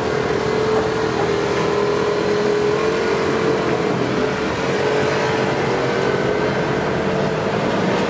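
Road traffic: cars and a motor scooter pulling away across a railway level crossing, with a steady hum throughout.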